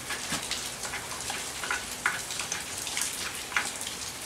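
Scattered light metallic clicks and scrapes of a tube spark-plug wrench turning and a spark plug being unscrewed from the cylinder head of a Veterok 8 outboard motor, with gloved hands handling the parts.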